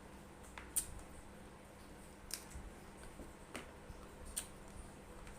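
Close-up eating sounds of a person chewing fried chicken: a few sharp, crisp crunches and mouth clicks, about four spread over the few seconds.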